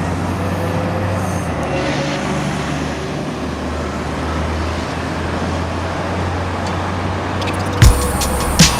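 Street traffic noise with a steady low engine rumble. Near the end comes a sudden loud thump, followed by sharp hits.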